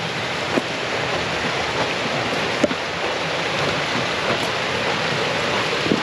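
Water rushing loudly and steadily through an old water mill's turning screw, with a couple of light knocks.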